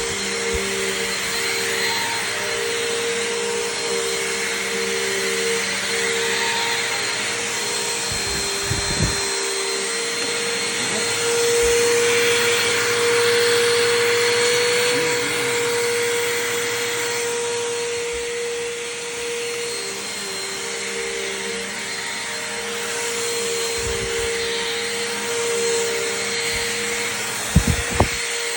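Bissell Powerforce Compact upright vacuum cleaner running, its motor giving a steady whine over a rushing hiss, the level swelling and easing a little. A brief knock sounds about nine seconds in, and two more come close together near the end.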